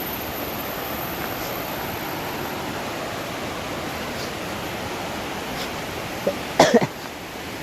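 Steady rushing of a waterfall, an even noise. Near the end a brief, loud, sharp sound cuts through it.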